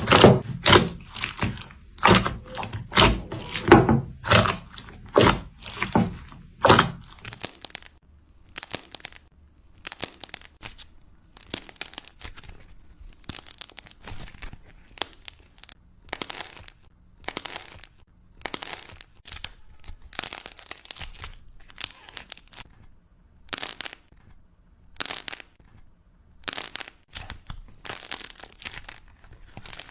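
Slime being squeezed and pulled by hand, giving crunching, crackling and tearing sounds. About seven seconds in, dense, loud crunching gives way to quieter, separate crackles and pops.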